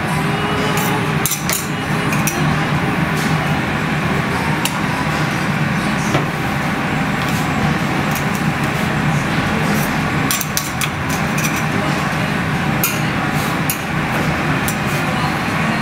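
Steady machine hum of a bakery kitchen, with scattered sharp clicks and clinks of a metal spatula against cast-iron pizzelle irons as the cookies are lifted off.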